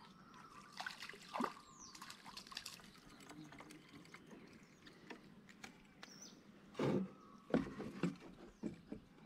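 Water splashing and dripping beside a small boat as a caught crucian carp is released by hand back into shallow reedy water. The louder splashes or knocks come in the second half.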